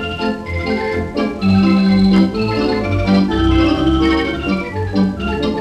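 Two-manual, nine-rank Wurlitzer theatre organ playing a lively tune with a steady bouncing bass and chords, heard from a 1931 Columbia 78 rpm record.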